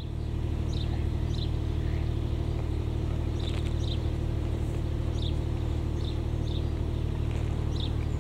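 A steady low hum from an unseen idling engine, with short high bird chirps scattered across it.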